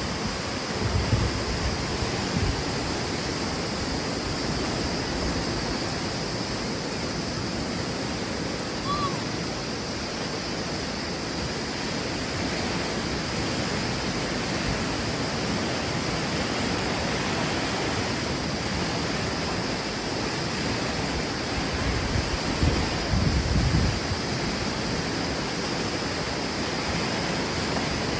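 Swollen, flooding river water rushing steadily, with wind buffeting the microphone about a second in and again near the end.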